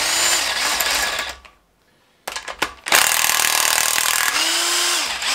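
Cordless DeWalt 20V impact wrench hammering loose the head bolts on a Honda K20 cylinder head. It runs in two long bursts, separated by a short pause with a couple of quick blips, and the pitch drops at the end of the second burst as the bolt spins free.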